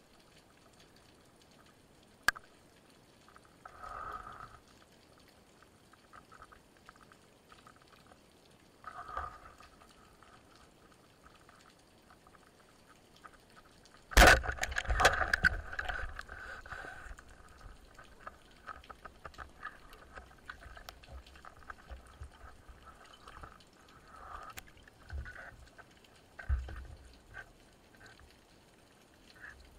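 Underwater sound: faint crackling, short bursts of bubbling, and a sharp bang about 14 seconds in, followed by several seconds of dense bubbling and rattling.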